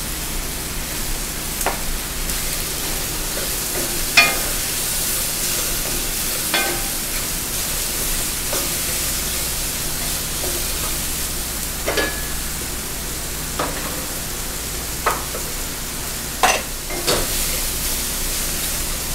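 Chicken, mushrooms and zucchini sizzling steadily in a stainless steel pan while a wooden spatula stirs them. About eight sharp knocks of the spatula against the pan, some ringing briefly.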